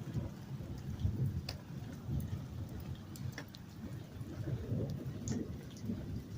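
Thunderstorm: a continuous low rumble of thunder under falling rain, with scattered sharp ticks of drops hitting a surface.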